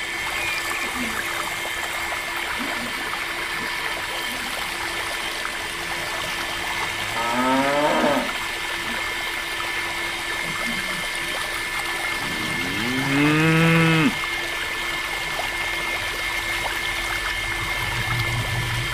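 A cow moos twice, briefly about seven seconds in and longer about thirteen seconds in, its pitch rising and then falling. Under it a small DIY electric water pump runs steadily, its stream pouring and splashing into a pond.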